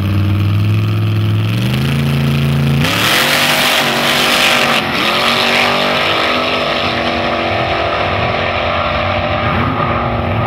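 Two drag-racing gassers' engines held at high revs on the start line, stepping up in pitch, then launched at full throttle about three seconds in. The engine note rises, drops briefly at a gear shift near five seconds, and climbs again as the cars run down the strip.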